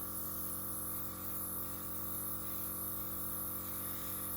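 A steady hum made of several even, unchanging tones, from a motor or electrical mains, with nothing else happening.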